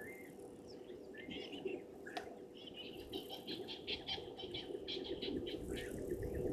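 Wild birds calling: scattered short chirps, then from about three seconds in a fast run of repeated chirps, around six a second, lasting two to three seconds.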